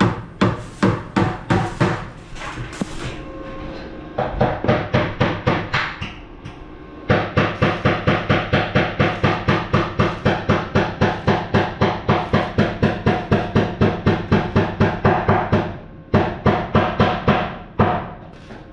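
Hammer driving nails into a wooden perch in quick, even blows of about four or five a second. The blows come in runs broken by short pauses.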